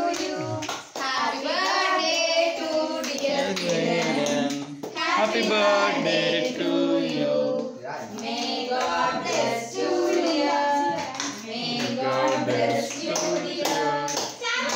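A group of people singing together, children's voices among them, with hand-clapping.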